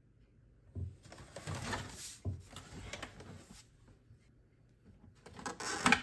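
Canon PIXMA TS5160 printer's plastic body being handled and moved around on a wooden tabletop: a series of knocks, scrapes and rustling for a few seconds, then a louder cluster of knocks and clatter near the end as the power cord is unplugged.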